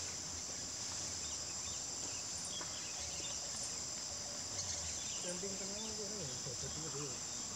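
A steady, high-pitched chorus of insects shrilling without a break, with faint voices talking in the background in the second half.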